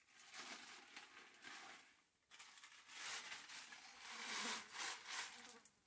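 Plastic bag of dried noodles crinkling and rustling as it is handled and opened, in two stretches with a short gap about two seconds in.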